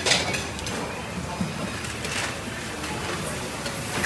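Busy food-stall background noise, a steady clatter-filled din with a few short sharp clinks of crockery.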